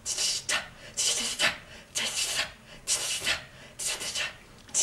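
Rhythmic rasping scrape strokes, about one burst a second, some coming in quick pairs, in an even repeating pattern.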